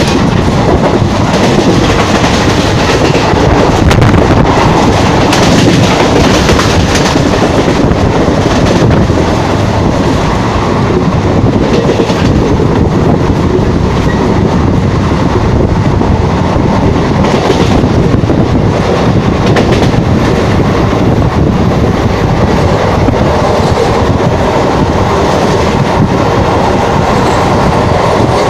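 Passenger coach of an express train running at speed, heard from the open doorway: a loud, steady rumble and rattle of the wheels on the rails, mixed with rushing air.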